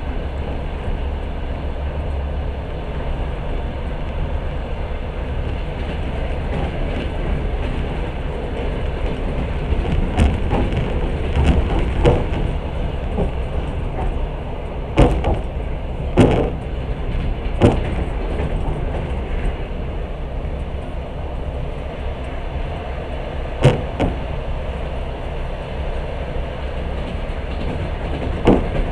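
Passenger train running, heard from inside the carriage: a steady low rumble of wheels on the track, broken by sharp knocks from the wheels, several bunched in the middle and one or two near the end.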